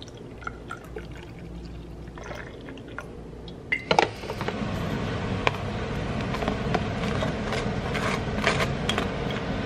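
Coffee pouring from a glass carafe into a ceramic teacup, a steady splashing hiss that grows louder about four seconds in, with light clinks of china.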